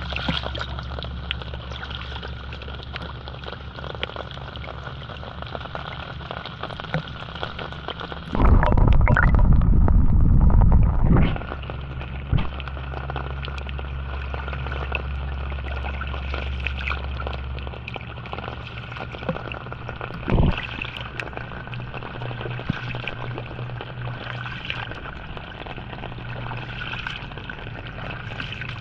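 Steady rain and water noise. About a third of the way in, a loud low rumble cuts across it for about three seconds, and a brief second one comes later.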